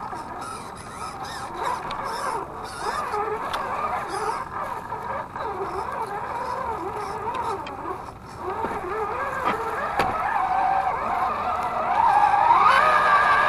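Axial SCX10 II RC crawler's electric motor and geared drivetrain whining as it crawls, the pitch wavering up and down with the throttle, with a single sharp click about ten seconds in. Near the end the whine climbs to a higher, louder, steadier pitch.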